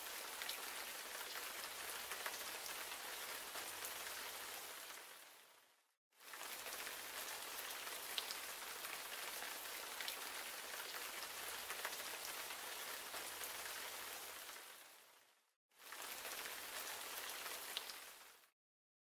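Steady rain falling, a soft even hiss with scattered small drop ticks. It fades out and back in twice and fades away shortly before the end.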